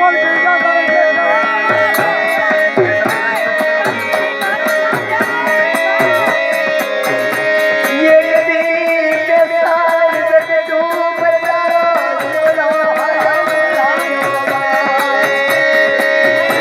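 Gujarati dakla folk music: regular low drum strokes under a steady held drone and a wavering, ornamented melodic line.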